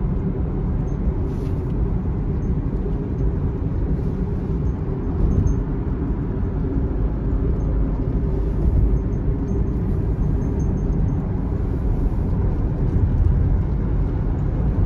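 Steady road and engine noise inside a car's cabin at highway speed on a rain-wet road.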